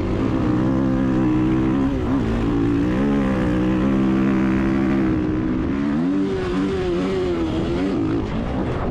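Dirt bike engine running hard under throttle, with short dips in pitch about two and three seconds in and a deeper dip and rise near the end, as the throttle is eased and opened again.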